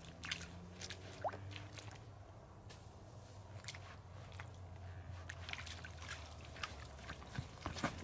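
Scattered light scuffs and clicks of footsteps on a wet concrete tee pad, over a steady low hum.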